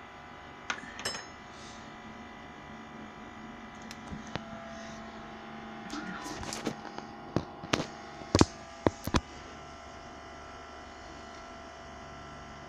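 Steady electrical hum with several faint fixed tones, broken by a cluster of sharp clicks and knocks about six to nine seconds in, as of equipment being handled.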